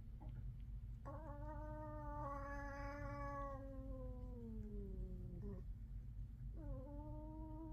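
A cat's long, drawn-out yowl with a slowly falling pitch, lasting about four seconds, then a second yowl starting near the end. It is a threat call aimed at another cat in a standoff.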